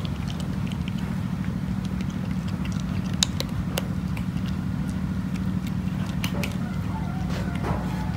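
Cat crunching dry kibble: sharp, irregular crackly clicks over a steady low hum.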